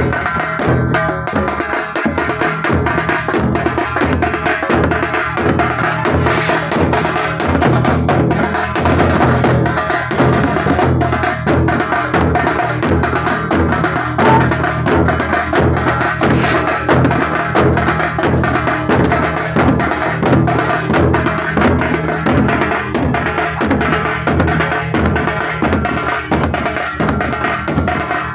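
A procession drum band playing a fast, continuous rhythm: a large double-headed drum beaten with a stick alongside other percussion, with pitched music over the drumming.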